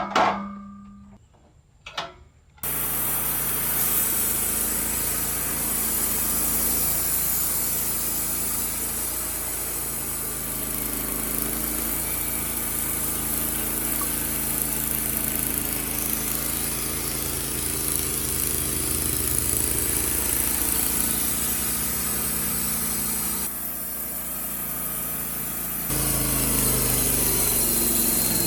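Small gas engine of a Wood-Mizer LT15 Wide portable sawmill running steadily, starting abruptly about two and a half seconds in, with its note dipping briefly and then coming back a little louder near the end.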